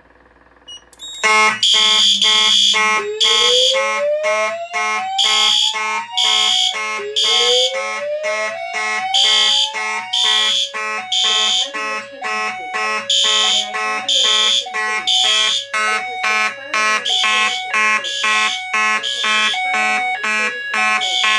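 Fire alarm drill: several notification appliances start together about a second in. Horns sound in a rapid pulsing pattern, and a speaker plays a slow whoop tone that rises twice, each sweep lasting about three and a half seconds.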